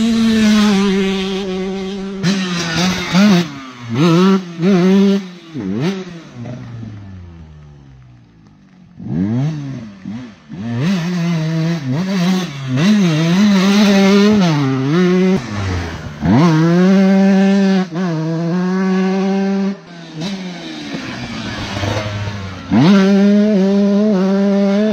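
KTM motocross bike's engine revving hard, its pitch rising and falling with repeated throttle blips and held at high revs. It fades to a low level about a third of the way in, then picks up again.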